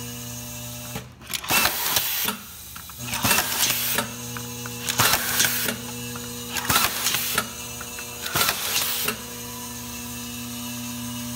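Ingersoll Rand ARO automatic screwdriver driving screws into plastic meter cover plates: five short bursts of air-tool running and hiss, one screw every second and a half or so. A steady hum runs underneath throughout.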